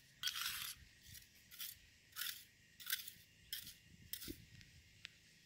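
Sand and soil being scraped away by gloved hands along the edge of concrete pavers: short, faint scraping strokes, about two a second.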